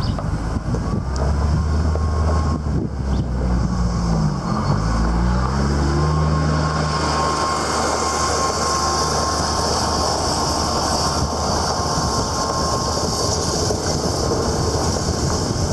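A Jeep driving on a gravel dirt road: its engine runs with a note that shifts up and down about four to five seconds in, under steady tyre and road noise that grows stronger and hissier as the vehicle picks up speed in the second half.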